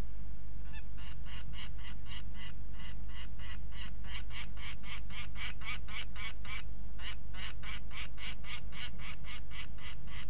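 Juvenile peregrine falcon calling in a rapid series of short, harsh notes, about four a second, with a brief pause around two-thirds of the way through. A steady low hum runs underneath.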